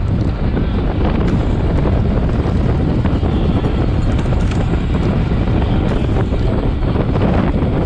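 Loud, steady wind buffeting the microphone of a camera mounted on a road bike moving at racing speed.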